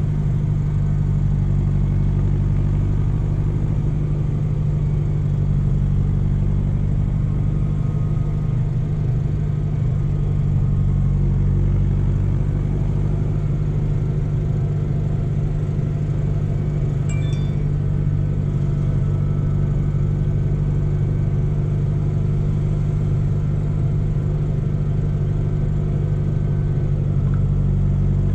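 Tractor's diesel engine running steadily at road speed, heard from inside the cab as an even low drone. A single short click comes a little past the middle.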